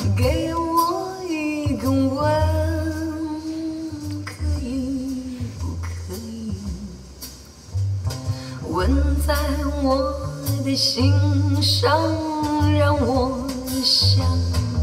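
A song with a singer and guitar over deep, sustained bass notes, played through a car's upgraded sound system: Morel Virtus speakers and a spare-tyre subwoofer driven by an Alpine PDP-E800 amplifier with DSP.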